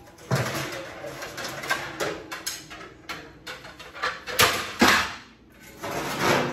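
Metal oven racks scraping and rattling as they are handled in an open oven, with irregular clattering knocks of pans and cookware. The loudest clatters come about four and a half and five seconds in.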